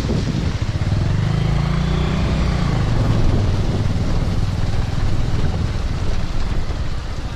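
Motorcycle engine running steadily at low speed while riding, its low note swelling briefly between about one and three seconds in, with a steady hiss of wind and road noise over it.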